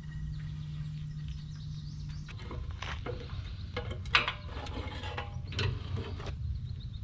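Tools and parts being handled during a mower oil change: a steady low hum for the first two seconds or so, then a run of irregular clicks, knocks and scrapes.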